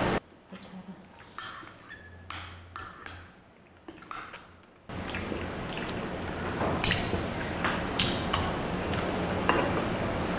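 Metal spoon and fork clinking and tapping against a glass dish while lomi noodles are lifted out of the broth, in scattered light strikes. The background is very quiet at first, and a steady room noise comes in abruptly about five seconds in.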